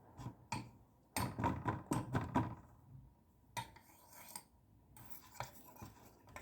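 A utensil stirring wet plaster of Paris in a mixing bowl: a run of quick scraping, clinking strokes, then a few single knocks against the bowl.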